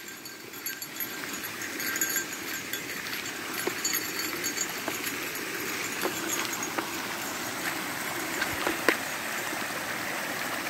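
Small woodland stream swollen by heavy rain, water rushing and splashing steadily and growing louder, with footsteps on a gravel road about once a second.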